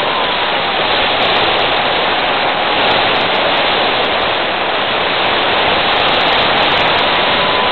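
Steady hiss of rushing air and static from a low-flying FPV model plane's onboard audio feed, with a faint thin tone drifting slowly down and then holding under it.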